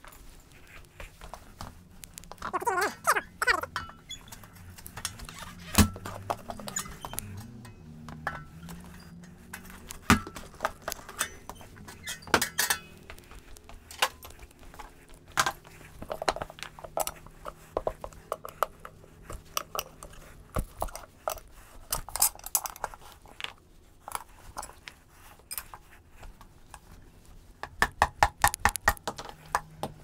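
Steel tire lever clinking and scraping against a scooter's steel wheel rim as the old tire is pried off: a string of sharp metallic clinks and knocks, some ringing briefly, with a quick run of clinks near the end.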